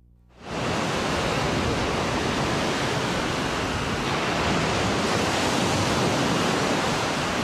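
Ocean surf washing onto a sandy beach: a steady rushing of waves that fades in about half a second in.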